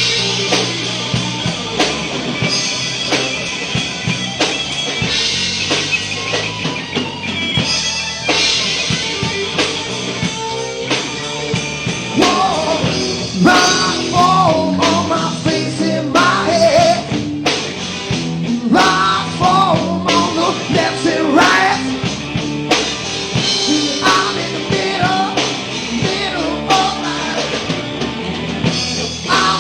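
Live rock band playing loud and steady, with drum kit and electric guitar. From about twelve seconds in, a wavering melodic line rises over the band.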